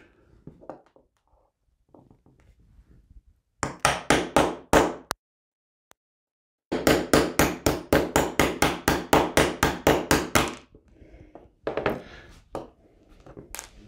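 Small hammer tapping a 3/32-inch pin punch to drive the sear pin out of a Beretta Cheetah pistol frame resting on a bench block. A short run of sharp taps comes first, then after a pause a longer rapid string of about five taps a second, and a few more taps near the end.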